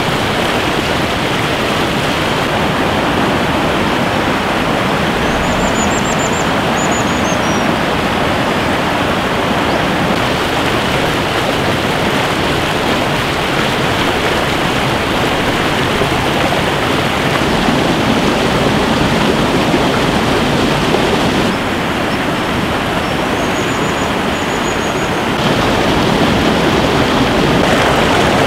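Rushing whitewater of a mountain stream, a loud steady rush of water. Faint high-pitched bird chirps come through twice, a few seconds in and again about three quarters of the way through.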